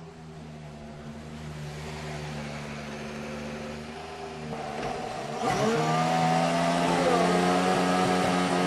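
2014 Formula 1 Ferrari's 1.6-litre turbocharged V6 engine running at low revs, then getting louder and rising in pitch about five and a half seconds in, with a brief dip and climb in pitch near the end.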